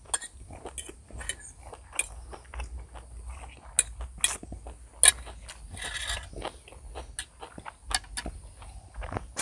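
Close-up eating sounds: a person chewing and biting, with irregular wet mouth clicks and crackles and the odd clink of a spoon or fork.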